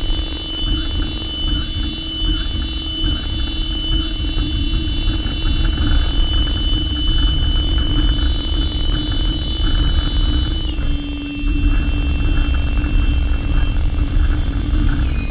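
CNC machining centre milling an engine block: a steady high spindle whine over a low rumble, with a faint irregular rattle of the cutting. The whine steps down slightly in pitch about two-thirds of the way through and shifts again near the end as the spindle speed changes.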